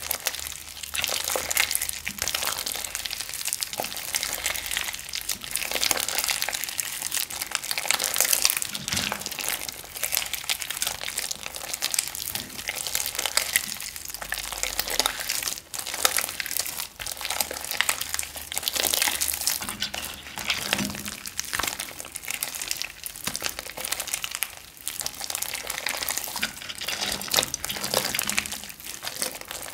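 Pink glitter slime with beads mixed in, squeezed, stretched and kneaded by hand: a continuous stream of small wet crackles and pops.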